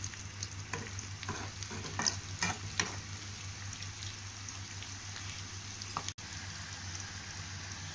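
Masala-battered elephant yam pieces deep-frying in hot oil in a kadai, with a steady sizzle. A perforated metal skimmer stirs them, scraping and knocking against the pan several times in the first three seconds.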